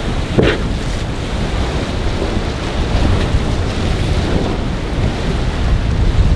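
Wind buffeting the microphone over the wash of surf and a boat running through rough chop, with a short splash of spray about half a second in.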